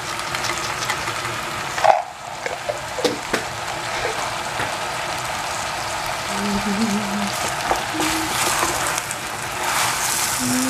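Zucchini, onion and carrot sizzling steadily as they sauté in a stainless steel saucepan, with a single sharp knock about two seconds in and a wooden spoon stirring through the vegetables near the end.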